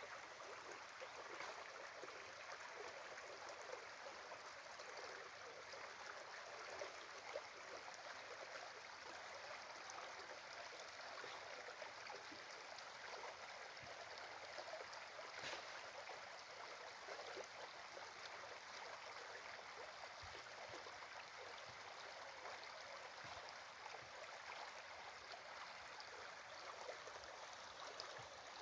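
A small stream running, a faint, steady babble of water with a few light ticks.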